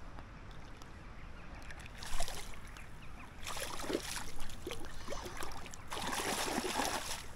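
Water splashing in three short spells, about two seconds in, again around four seconds and near the end, as a small hooked pike thrashes at the surface.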